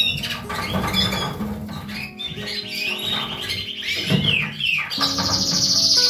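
Canary singing in rapid rolling trills and quick rising-and-falling whistles, ending in a loud, steady high trill about five seconds in, over background music with held low notes.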